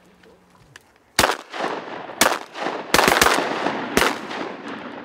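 Shotguns, one of them a 28 gauge, firing six shots in quick succession. One shot comes about a second in and another a second later, then a rapid string of three near the three-second mark and a last one about a second after that. Each shot trails off in an echo.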